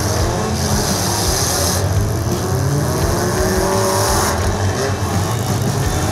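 Several demolition derby cars' engines running and revving at once, their pitches rising and falling as the cars maneuver in the pit.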